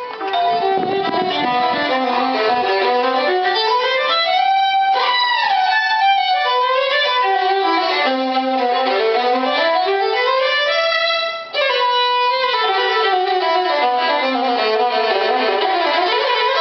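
Full-size violin played with the bow, running note sequences up and down the range, with a short break about eleven seconds in.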